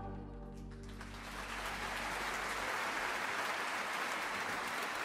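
The final held chord of a large choir and band dies away, and audience applause breaks out about a second in and keeps going steadily.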